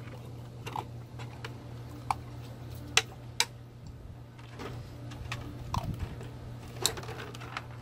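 Empty plastic water bottles clicking and crinkling as a puppy pushes its head among them after kibble in a plastic kiddie pool: a dozen or so sharp, irregular clicks.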